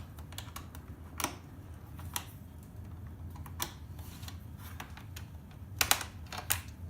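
Scattered light clicks and taps of a screwdriver and loosened screws as the casing of a Samsung set-top box is unscrewed, a few seconds apart with a quick pair near the end, over a steady low hum.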